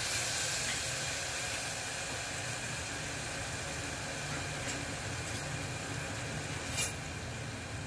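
Tomato purée sizzling in hot oil with mustard seeds and curry leaves in an aluminium pot, a steady hiss that slowly eases off. A single light click near the end.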